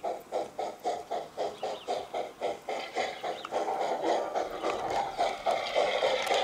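Small steam locomotive chuffing, its exhaust beats quickening until they run together into a continuous rush. A higher hiss joins near the end.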